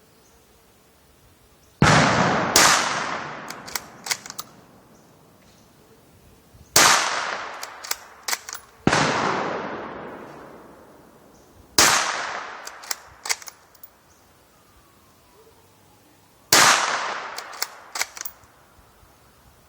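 Ruger American Ranch .223 bolt-action rifle firing subsonic cast-bullet handloads (3.2 grains of Clays): six shots at irregular spacing, each trailing off over a second or two. A few lighter clicks follow a second or so after most shots.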